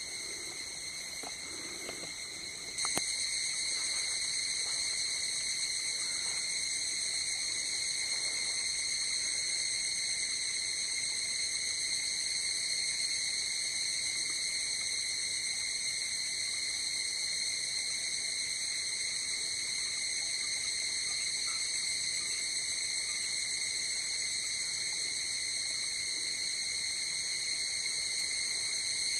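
Night insects trilling in a steady, unbroken high-pitched drone. About three seconds in there is a single click, and the drone is louder from then on.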